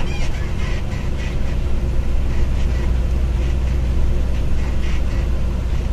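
Road noise inside a moving pickup: a steady low rumble of engine and tyres, with a few faint knocks near the start.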